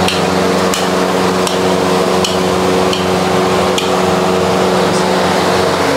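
Steady hum and hiss of a hot dosa griddle station, with light metal taps of a spatula on the griddle about every three-quarters of a second.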